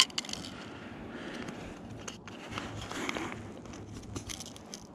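Faint rustling and scraping of fishing gear being handled in an inflatable boat, with a few short sharp clicks about four seconds in.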